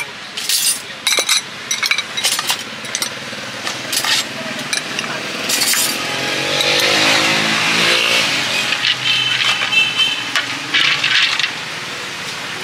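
Quick, sharp clinks and taps of a street vendor's utensils, then a motor vehicle's engine going by, its pitch rising and falling, from about six to ten seconds in.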